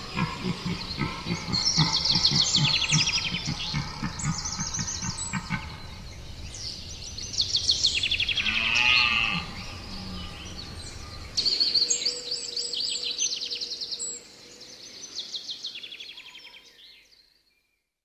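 Forest ambience of several birds singing and calling, with overlapping high chirps and rapid trills. A low rhythmic pulsing runs underneath for the first two-thirds, and the whole recording fades out near the end.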